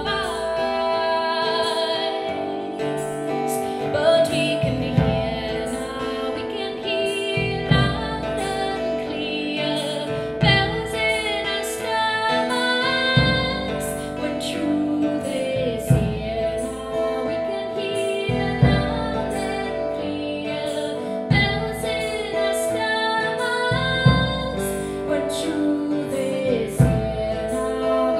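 Live acoustic indie song: a woman singing over two acoustic guitars, with a deep drum struck with a mallet about every two and a half to three seconds.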